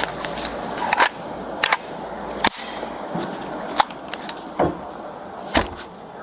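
About seven sharp clicks and knocks at irregular intervals over a low background.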